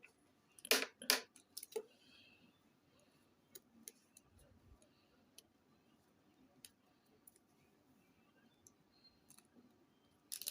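Sharp knocks and light clicks of a container and utensils being handled while thick conditioner is scooped and poured into it. The two loudest knocks come close together about a second in, with scattered faint clicks after and another knock near the end.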